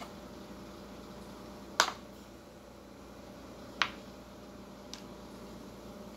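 Three short sharp clicks as food and tableware are handled at a table, the loudest about two seconds in and a faint one near the end, over a steady low hum.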